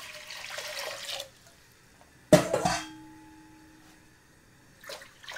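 Water being poured into a pot, a steady splashing pour that stops after about a second. About two seconds in comes a single sharp metallic clank that rings briefly, and the pouring starts again near the end.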